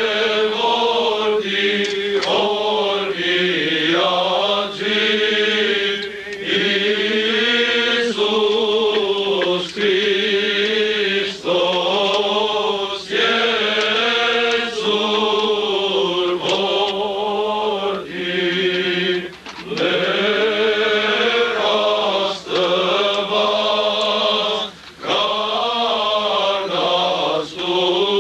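Armenian liturgical chant sung by men's voices in unison, one continuous hymn in long wavering phrases with short breaths between them.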